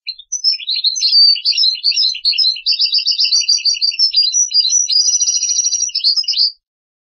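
European goldfinch singing one long twittering phrase of rapid chirps and trills, which stops suddenly about six and a half seconds in.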